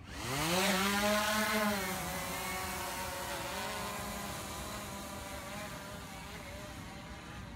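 Quadcopter drone's propellers buzzing as it lifts off. The pitch rises over the first second, then holds steady and fades slowly as the drone climbs away.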